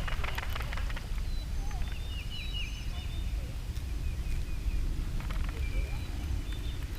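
Small birds chirping, a quick run of short, high, repeated notes through the middle, over a steady low rumble.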